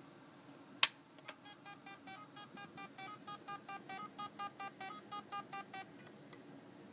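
Samsung Spinpoint hard drive making its strange melody noise: a sharp click, then a rapid run of short pitched beeps, about five a second, stepping between a few notes like a tune, stopping after a few seconds. It is the sign of a dead drive that is not reading.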